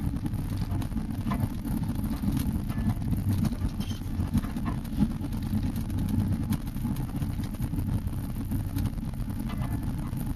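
4x4 driving slowly along a rough dirt track, heard from inside the cab: a steady low engine and road rumble with scattered knocks and rattles as it goes over the ruts.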